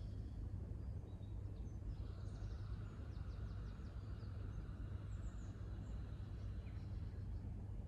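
Faint outdoor background: a steady low rumble, with a few faint bird chirps from about two to six seconds in.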